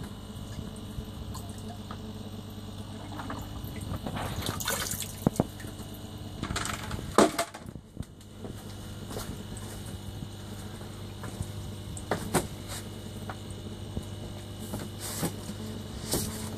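Water tipped from a plastic bucket into an indoor pond tub, splashing in two stretches about four to seven seconds in and ending with a sharp knock; a few lighter splashes and clicks follow over a steady low hum.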